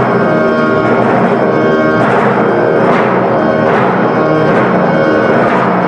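Grand piano and timpani playing together, loudly. In the second half a heavy stroke comes about once a second.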